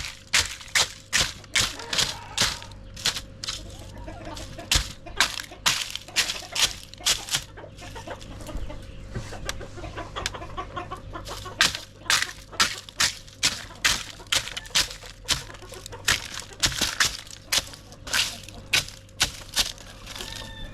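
Chickens clucking over a long run of sharp, evenly spaced knocks, about two to three a second, that thin out briefly midway.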